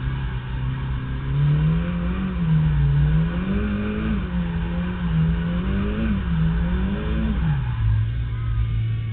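Nissan 240SX (S13) drift car's turbocharged SR20DET four-cylinder engine, heard from inside the stripped cabin. It holds a steady note, then its revs rise and fall four times, then drop to a steady lower note near the end.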